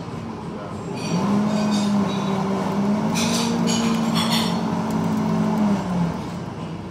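A café coffee grinder's electric motor spins up about a second in, runs with a steady hum that steps up a little in pitch partway through, and winds down about a second before the end. Sharp clinks of metal or glass come in the middle.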